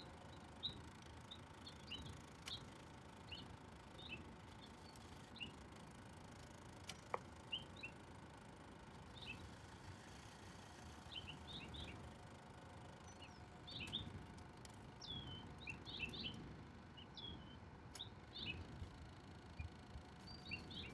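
Small birds chirping, with short high chirps scattered throughout and most frequent in the second half, over a faint low background hiss.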